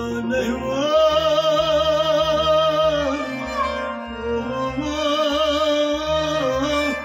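Kashmiri folk song: a man sings long, wavering held notes to a harmonium's steady drone, with a clay goblet drum (tumbaknari) keeping a regular beat about twice a second.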